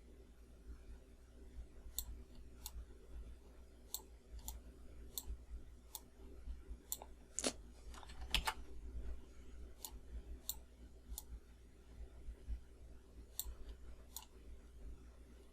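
Computer mouse clicking: sharp single clicks at irregular intervals, about fifteen in all, over a faint steady low hum. A little past the middle there are two louder, longer noises.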